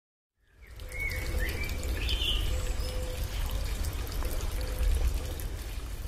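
Steady rush of water from a waterfall, fading in at the start, with a few short bird calls over it in the first couple of seconds.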